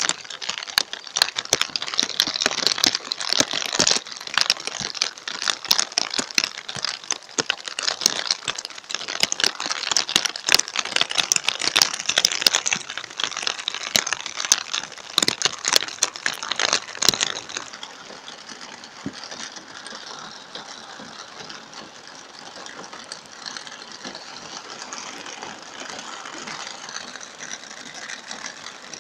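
Heavy rain hitting a car's roof and windows, heard from inside the car: a dense spatter of sharp hits for about the first seventeen seconds, then it eases to a steady hiss of rain.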